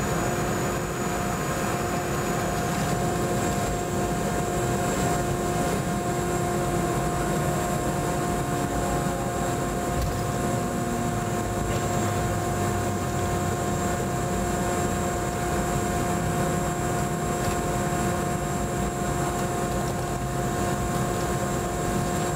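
Cabin noise beside the Boeing 717-200's rear-mounted Rolls-Royce BR715 turbofan as the jet taxis. The engine gives a steady whine made of several constant tones over a low rumble, heard from inside the cabin.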